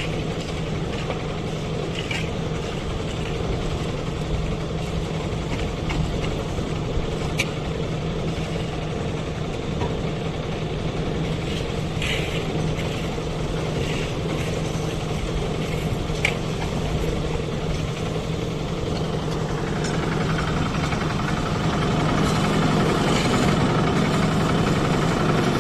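A vehicle engine running steadily with a low hum and a few light clicks, growing louder from about twenty seconds in.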